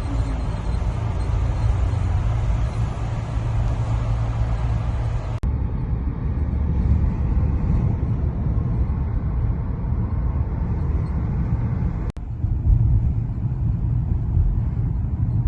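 Mercedes-Benz E450 on the move: a steady low rumble of engine and road noise, with the sound breaking off and changing abruptly twice, about five and twelve seconds in.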